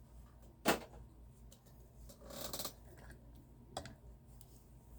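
Small handling noises of a toy car in its packaging: a sharp click about a second in, a brief rustle in the middle, and a lighter click later on.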